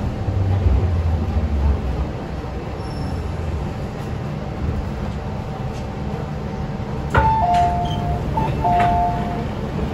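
MTR M-train rolling to a stop with a low rumble; about seven seconds in, the doors open with a clunk and a two-tone door chime that plays twice.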